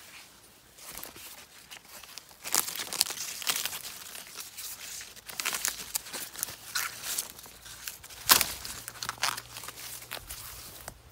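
Corn leaves rustling and crackling as a hand grabs them and pushes them aside, in irregular bursts with one sharper, louder crackle about eight seconds in.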